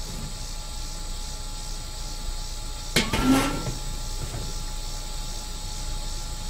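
Steady background hiss with faint high whining tones, and one sharp knock about three seconds in.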